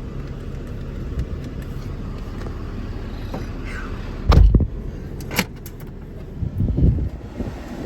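Steady low rumble of a vehicle, with one heavy thump about four and a half seconds in, a sharp click a second later and a few lighter knocks near the end.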